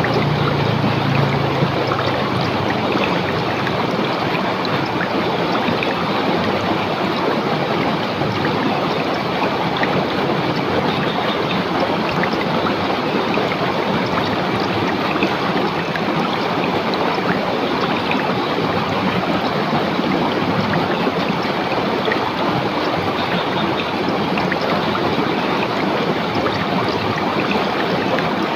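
River water running over rocks: a steady rush and splash. A low rumble underneath fades out in the first few seconds.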